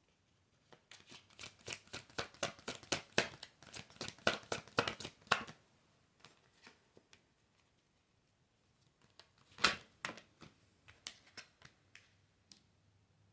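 Tarot cards being shuffled: a quick run of flicking cards riffles between about one and five and a half seconds in, then a single sharp snap of a card near ten seconds, with a few light taps after.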